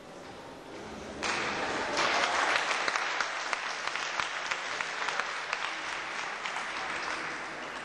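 Audience applauding, breaking out suddenly about a second in, growing louder a second later, then slowly tapering off.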